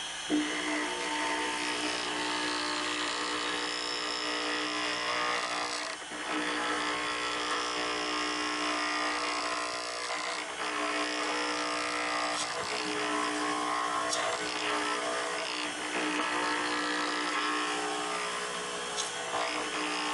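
Wood lathe running at full speed while a turning tool cuts a spinning pen blank: a steady motor hum under a rough scraping of the cut that comes and goes as the tool is lifted and put back. There is a sharp tap near the start as the tool first bites.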